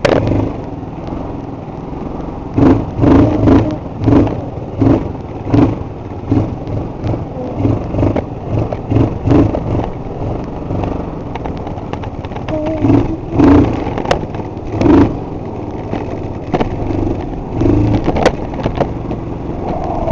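Linhai 257cc four-stroke single-cylinder scooter engine running on the move, with a run of loud surges in the noise, roughly one or two a second, through most of the stretch.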